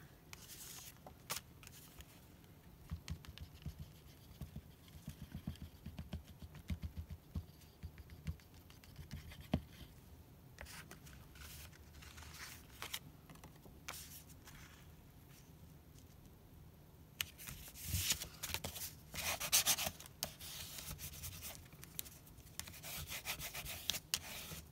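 Hands pressing and rubbing glued paper strips down onto a cardstock card front, with light paper rustling and small taps. The rustling gets louder about two-thirds of the way through and again near the end.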